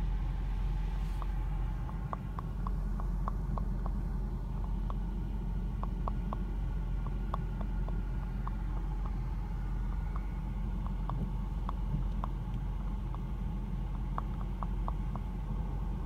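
Cabin of a BMW X5M stopped in drive, the engine idling as a steady low rumble. Over it comes a light, irregular knocking, short sharp ticks sometimes bunched two or three together, from the passenger side near the moonroof.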